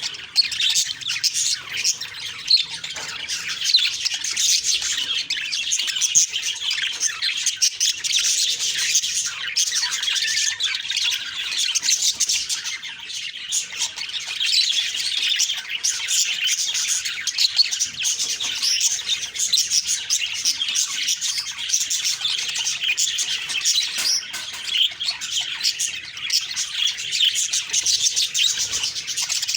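Budgerigars chirping and chattering without a break, many quick high calls overlapping.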